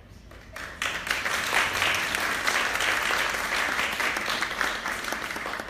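Audience applauding an award presentation: many hands clapping, starting about a second in and fading near the end.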